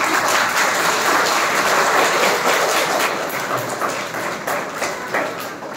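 A crowd applauding, many hands clapping together, thinning out near the end.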